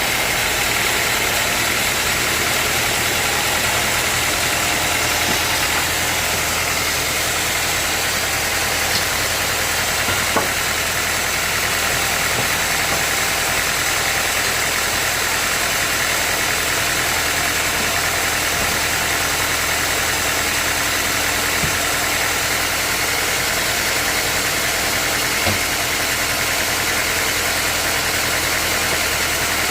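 Sawmill machinery running steadily, a loud even mechanical drone with a couple of faint knocks.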